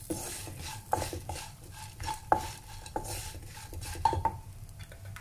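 Wooden spatula stirring and tossing raw banana cubes frying in a nonstick pan, as the cubes turn crisp. The spatula knocks against the pan at an irregular pace, about one or two knocks a second, some with a short ring from the pan, over a light sizzle of oil.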